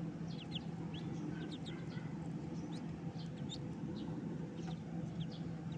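A group of ducklings peeping: short, high chirps in scattered runs of a few a second, over a steady low hum.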